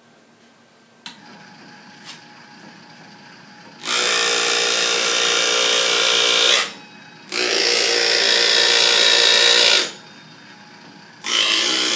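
Small electric motor of a driveshaft demonstration rig driving a driveshaft through U-joints set off parallel, so the rear U-joint keeps slowing down and speeding up as it turns. It hums faintly with a click about a second in, then runs loudly in three spells of a few seconds each, stopping briefly twice.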